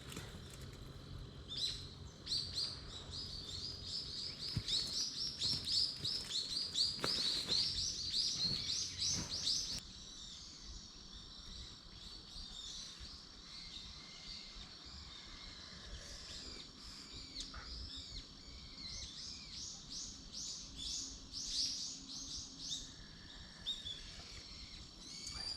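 A small songbird singing rapid runs of high chirps. One long run comes in the first ten seconds and a shorter one about twenty seconds in, over faint outdoor background hiss.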